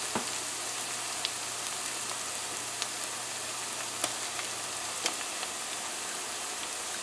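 Onions, scallion and garlic sizzling steadily in hot oil in a pot, with a few light clicks of a metal spoon against the pot as tomato paste is added.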